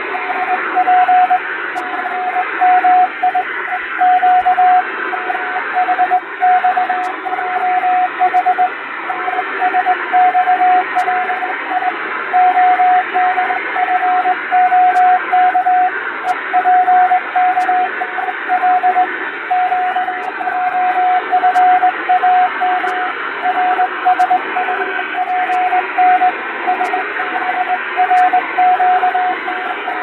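Simulated shortwave Morse code (CW): a single beeping tone keyed in dots and dashes over a steady bed of radio static hiss, with added noise and fading. It is sending random five-letter groups of English letters, as used for receiving practice.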